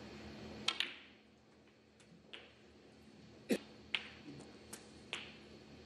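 Snooker balls clicking during a break: sharp clicks of the cue tip on the cue ball and of ball striking ball. There is a pair of clicks about a second in and a louder one a little past halfway, followed by a few lighter clicks, over a faint steady hum.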